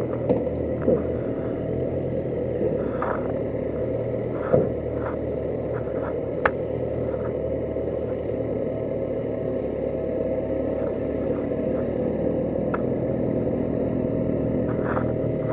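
Motorcycle engine running steadily, with a few faint clicks over it.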